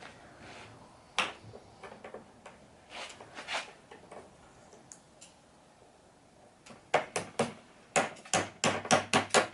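Scattered clicks, then a quick run of about nine sharp knocks near the end, as the boot is worked tightly onto the bottom end of a retractable screen housing.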